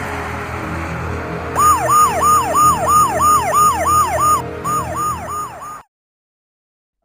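A steady rumbling noise, then about a second and a half in a siren starts a fast yelp, about three quick rising-and-falling wails a second with a brief break. It cuts off suddenly near the end.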